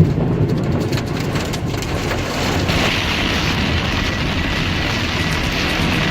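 A car driving through heavy rain, heard from inside: steady road and rain noise with a few scattered knocks early on. The hiss grows stronger about three seconds in.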